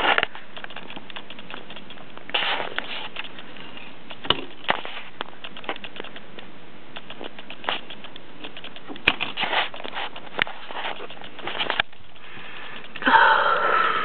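Microwave oven running with a steady hum while a CD inside crackles and snaps irregularly as its metal layer arcs. A thicker run of snaps comes around the middle, and a louder burst of sound comes near the end.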